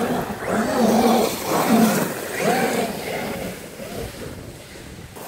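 A vehicle's motor revving up and down several times, fading away over the last couple of seconds.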